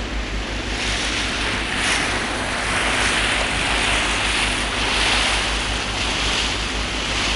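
Water rushing and splashing along the hull of a moving ferry, a hiss that swells and ebbs in surges and grows louder about a second in, with wind buffeting the microphone.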